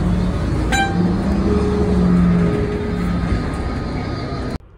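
Cabin noise inside a city bus: the engine running with a steady rumble and a droning hum, and a short high ding about a second in. The sound cuts off suddenly near the end.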